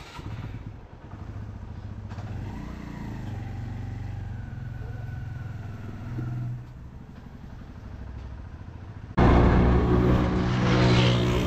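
Suzuki GS150 motorcycle's single-cylinder engine running steadily at low revs; about nine seconds in the sound jumps abruptly much louder and fuller.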